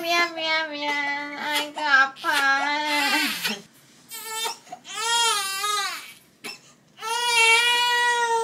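A ten-week-old baby crying: three long, high-pitched wails with short breaks between them.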